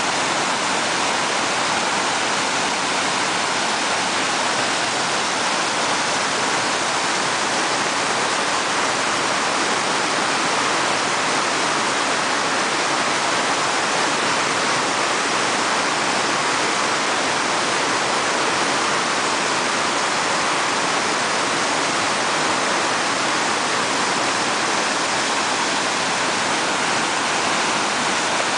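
Whitewater rapid: river water pouring over rocks and churning in a hole, a loud, steady rush that does not change.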